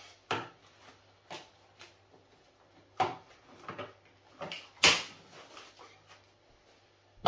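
Cling film pulled off the roll, stretched over a metal baking tray and pressed down onto pastry cream: crinkling plastic with a few sharp crackles and snaps, the loudest about five seconds in.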